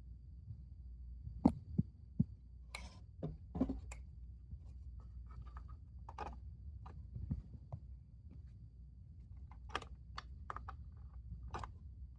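Scattered light clicks and knocks, a few stronger thumps among them, over a steady low rumble.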